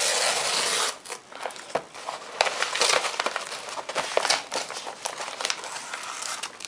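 Tear strip ripped along a padded paper cushion mailer, a steady tearing for about the first second. Then crackling and rustling of the opened envelope as it is handled and its contents are slid out.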